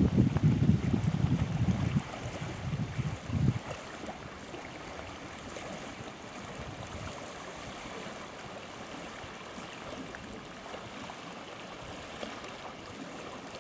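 Wind buffeting the microphone for the first two seconds and again in a short gust about three and a half seconds in, then a steady soft wash of wind and small waves on the lake shore.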